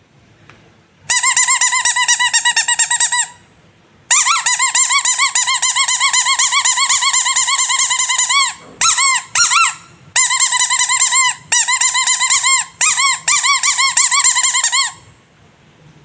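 Squeaky rubber animal toy squeezed over and over in quick runs, a high squeal with a fast wobble in pitch. It comes in several stretches, a few short squeaks and brief pauses breaking them up.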